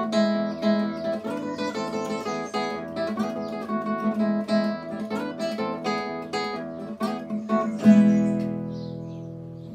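Nylon-string classical guitar played fingerstyle in an instrumental samba, picked notes over a steady bass. About eight seconds in, a final chord is strummed loudly and left to ring out, fading away.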